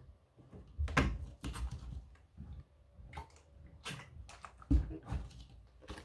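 Paperback book being handled, with pages rustling and turning and a scatter of soft knocks and thumps.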